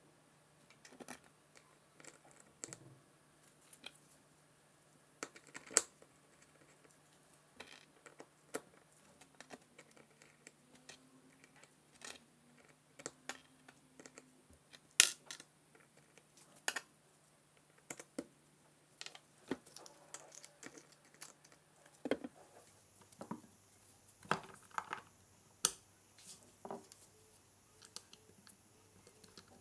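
Irregular clicks and taps of small metal planet gears and the plastic gear housing of a Crown 18V cordless drill being handled as its planetary gearbox is taken apart. The sharpest click comes about halfway through.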